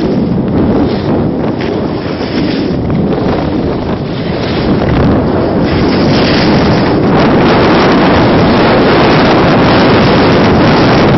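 Wind rushing over the microphone of a skier's camera during a fast downhill run, a loud, even buffeting noise that grows louder and steadier from about halfway through as the speed builds.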